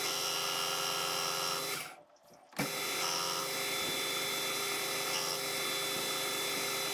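Metal lathe spindle running, a steady motor and gearhead whine. The sound drops out briefly about two seconds in and comes back with a click.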